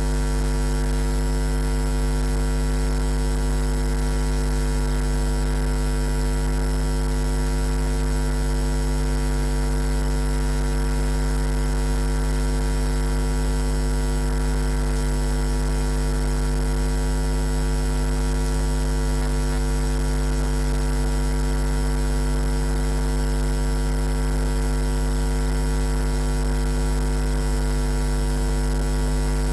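Steady electrical mains hum: a low buzz with a stack of overtones over a faint hiss, unchanging.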